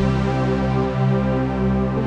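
Acustica Audio Nox software synthesizer playing a preset: a thick, sustained chord with a deep bass, held steady.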